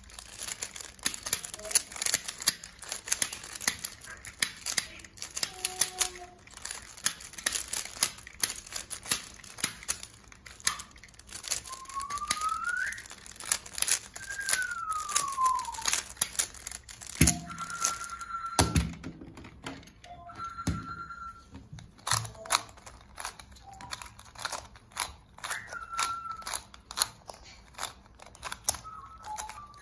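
Plastic twisty puzzles (a 3x3 cube, a rainbow ball puzzle and a megaminx) being twisted by hand to scramble them: rapid, irregular plastic clicking and clacking. Several brief whistle-like tones, one rising and one falling, come through about halfway in.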